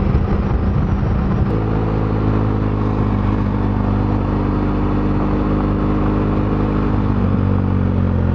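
BMW F800GS parallel-twin motorcycle engine running at a steady pace over wind and tyre noise on a gravel road. About a second and a half in the engine note changes, then holds steady.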